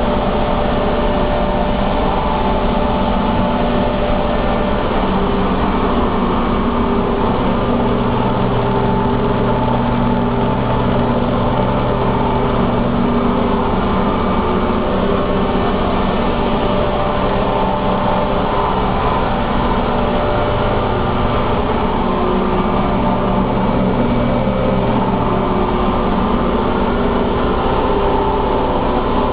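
Paper-mill pulping machinery running: a loud, steady industrial drone with several steady hum tones, and a deeper hum that comes in and drops out twice.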